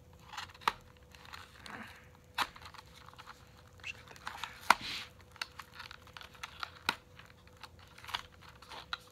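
Small cardboard product box being cut and torn open with a folding knife: short scrapes and tearing sounds broken by several sharp clicks, the loudest about halfway through.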